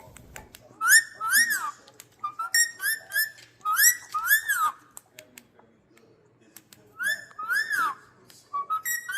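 Indian ringneck parakeet whistling in short phrases of arching notes that rise and fall, two to four notes at a time with short pauses between, and a longer pause about halfway through.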